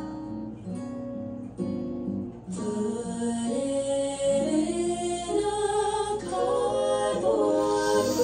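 Slow R&B performance by a girl group: close, layered female vocal harmonies. Held chords with short breaks at first, turning fuller from about two and a half seconds in.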